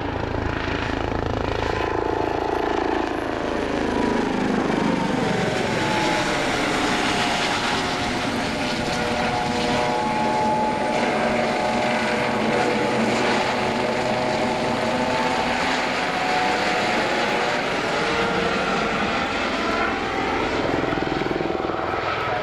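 Police helicopter flying low past the crowd. Its rotor and turbine sound is steady, with a sweeping, shifting tone as it moves.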